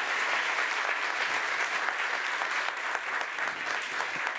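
Audience applauding, a steady dense clatter of many hands clapping.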